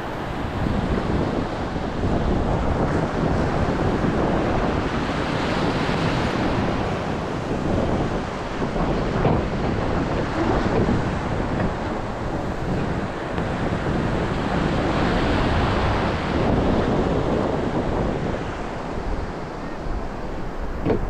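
Wind buffeting the microphone over the rush of water, swelling and easing every few seconds.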